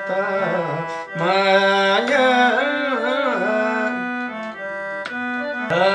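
Nepali folk song sung live by a male singer, his voice winding through a long melismatic phrase on the word 'maya', over steady held instrumental notes that run beneath it.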